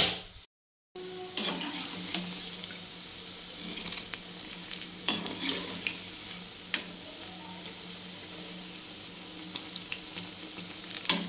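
Pakoras deep-frying in mustard oil in a kadhai: a steady sizzle, with a few sharp scrapes and knocks as a steel slotted spoon turns them against the pan.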